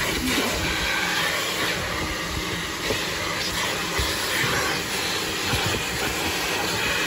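A vacuum cleaner running steadily, its hose and crevice nozzle sucking at a car's footwell carpet.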